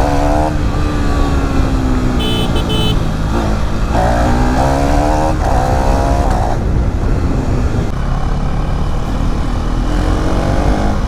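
KTM Duke 390 single-cylinder engine pulling hard, its revs climbing and dropping sharply several times as the rider shifts up through the gears. A short high-pitched tone sounds about two seconds in.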